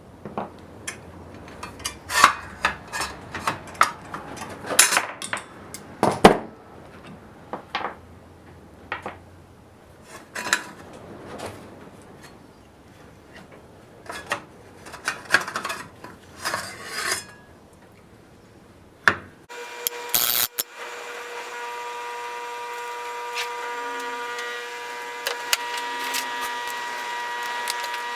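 Tools and parts being handled on a work surface: scattered clinks, knocks and scrapes. About two-thirds of the way in the sound changes abruptly to a steady hum at a few fixed pitches, with occasional ticks.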